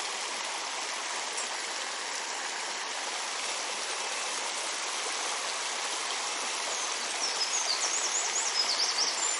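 Mountain stream rushing steadily. About seven seconds in, a high, rapidly rising and falling bird song joins it for a couple of seconds.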